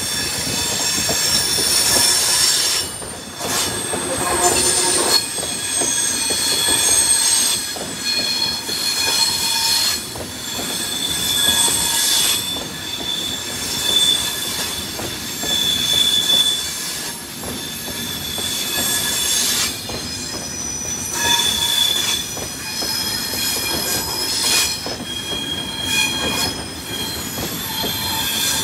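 Train rolling past on the rails with its wheels squealing: several high-pitched squeals come and go over steady running noise.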